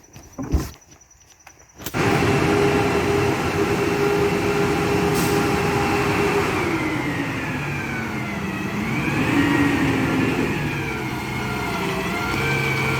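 A few faint knocks, then about two seconds in the engine of a Labrie Expert 2000 recycling truck comes in abruptly and runs steadily. Its pitch drops past the middle and rises again near the end.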